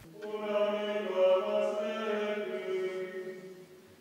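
A male voice chanting a liturgical plainchant phrase on long, nearly level notes, with small steps in pitch, stopping shortly before the end.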